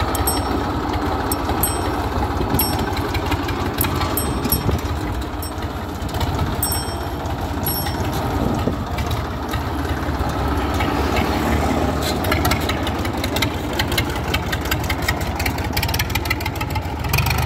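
Massey Ferguson 35 tractor's three-cylinder Simpson diesel engine running steadily as the tractor drives slowly away.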